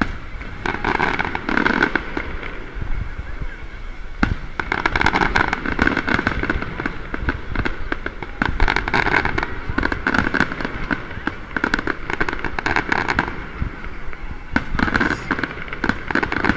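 Fireworks display: aerial shells bursting overhead, with many sharp bangs and crackles coming in quick, irregular succession.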